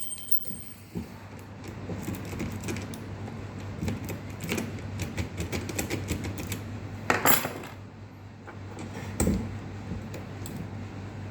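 Small metal clicks and clinks of a key and tools working a stuck Toyota ignition lock cylinder, with a louder metallic rattle about seven seconds in and a knock about two seconds later. A steady low hum runs underneath.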